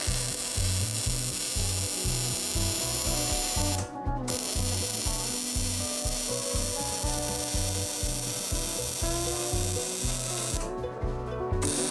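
MIG welder arc crackling steadily as a bead is run on thick steel angle iron. The arc stops briefly about four seconds in and again for about a second near the end, then restarts.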